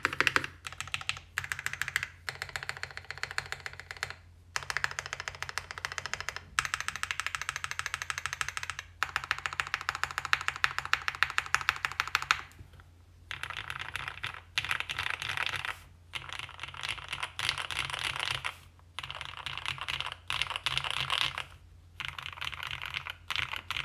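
Fast typing on a Mode 80 mechanical keyboard with lubed, filmed CannonKeys Lavender switches, a POM plate, foam-damped case and GMK Umbra keycaps: a rapid stream of key strokes in runs of a second or more, broken by short pauses.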